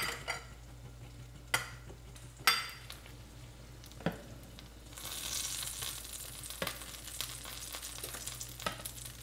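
A metal slotted spoon clicks and scrapes against a skillet as eggs are nudged in simmering poaching water, several separate clicks about a second apart. A sizzling hiss from the frying pan swells from about halfway through, over a low steady hum.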